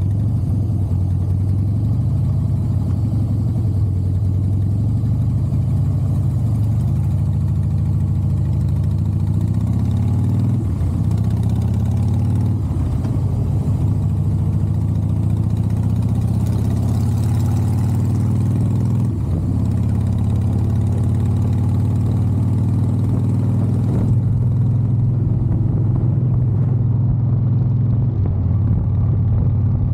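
Harley-Davidson Softail Heritage Classic's V-twin engine and exhaust running steadily on the move. The engine pitch rises several times as the throttle opens, around ten to thirteen seconds in and again near the middle.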